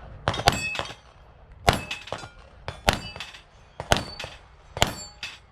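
Pistol shots fired at steel plates, each shot followed by the ring of a steel target being hit. There are about six impacts spaced roughly a second apart.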